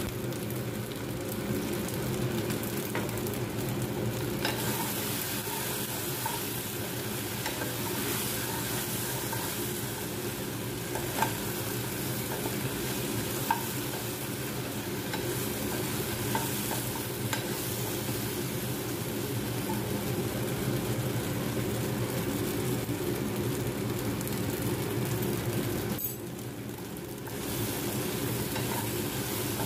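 Shell pasta and vegetables sizzling in a nonstick frying pan while a steel spatula stirs and scrapes through them, with a few sharp clicks of the spatula on the pan, over a steady low hum. The sizzle briefly dies down near the end.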